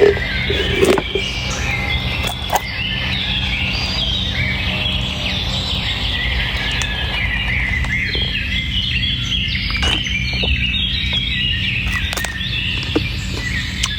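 Many small birds chirping continuously over a steady low hum, with a sharp knock about a second in and a few faint clicks later on.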